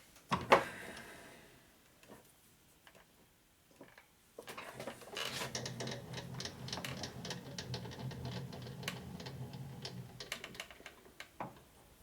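A small machine or power tool runs for about seven seconds from about four seconds in: a low hum with a rapid, dense clicking rattle over it. A single knock comes right at the start.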